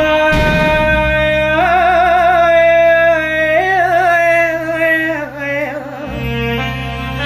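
Iraqi lament-style song music: a long, wavering held note over a steady low drone, fading out about five seconds in.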